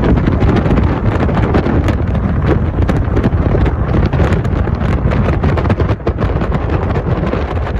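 Wind buffeting the microphone: a loud, steady rumble with rapid crackles.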